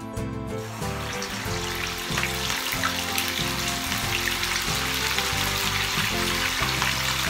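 Chicken pieces sizzling and crackling in hot oil in a frying pan as they are lowered in; the sizzle sets in about a second in and grows louder as more pieces go in. Background music plays underneath.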